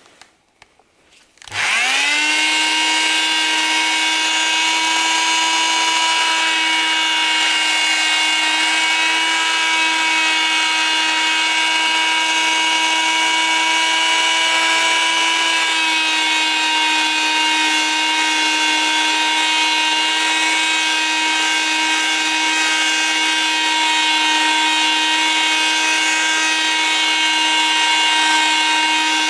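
Handheld electric detail sander with a triangular pad, a rag over the pad, switched on about a second and a half in. It spins up quickly and then runs with a steady whine while it buffs polish on a chrome exhaust pipe. The pitch shifts slightly partway through.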